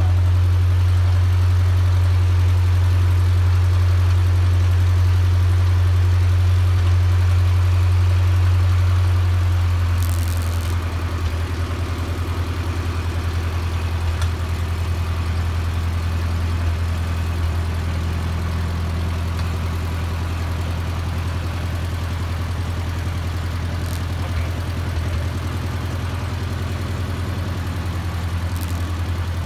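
Antique farm tractor engine idling steadily with a low drone. About ten seconds in it eases back to a slightly quieter idle.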